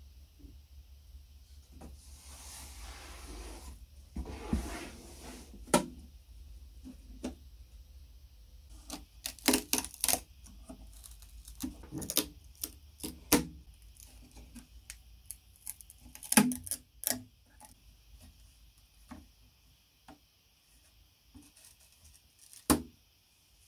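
Irregular sharp clicks and knocks of hand work on a workpiece, coming in clusters, over a low hum that stops about two-thirds of the way in.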